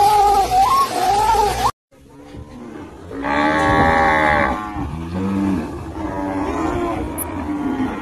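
Water buffalo lowing: one long moo about three seconds in, then a shorter, lower one and fainter calls. Before a short break near the start comes a wavering, higher call over the penguin footage.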